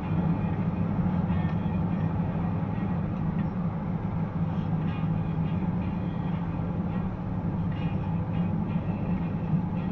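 Steady low drone of a car driving at motorway speed, heard from inside the cabin: engine and road noise.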